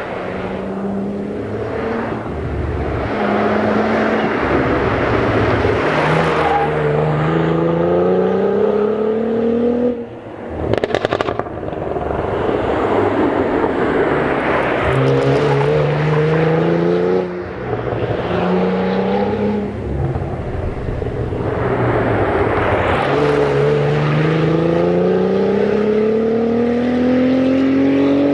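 Cadillac CT4-V Blackwing's 3.6-litre twin-turbo V6 accelerating hard in repeated pulls: the engine note climbs steadily, then falls back at each upshift and climbs again.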